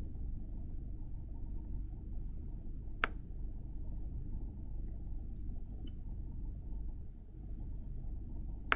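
Steady low room hum with two single sharp clicks, one about three seconds in and one near the end.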